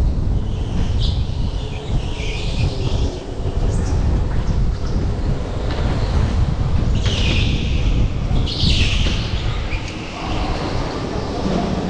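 Go-kart running at speed, heard from onboard: a steady low rumble with wind on the microphone, and tyres squealing in short bursts several times through the corners.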